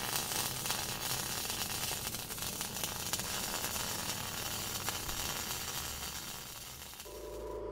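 Electric arc welding sizzling and crackling in a steady hiss; near the end it gives way to a steady electrical hum.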